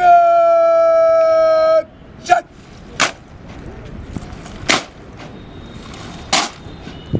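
A drawn-out shouted parade word of command, held on one pitch for nearly two seconds and dropping at the end, followed by a short shouted word. After that come three sharp cracks about a second and a half apart as the ranks of soldiers perform drill movements in unison.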